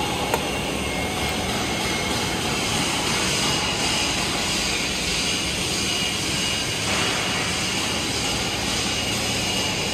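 Steady hiss and hum of a fabrication workshop while a TIG torch runs the final capping pass on a 2-inch stainless steel pipe joint. A faint steady high tone joins about a third of the way in.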